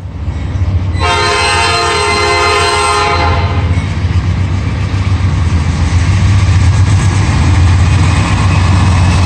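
Norfolk Southern diesel locomotives approaching: about a second in, the lead locomotive's air horn sounds one chord lasting about two seconds, then fades. The deep rumble of the locomotives runs underneath and grows a little louder as they draw near.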